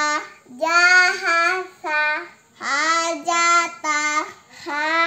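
Young girls chanting Arabic letter-syllables aloud from an Iqro primer in a sing-song Qur'an-reading recitation: drawn-out syllables in short phrases of two or three, with brief pauses between.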